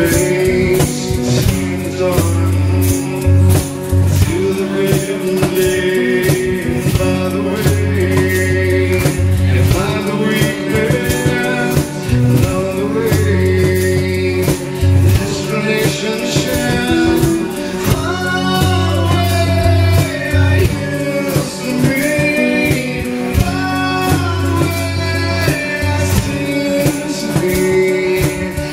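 Live acoustic rock band playing: strummed acoustic guitars, bass guitar notes and a male singer, over a steady light percussion beat.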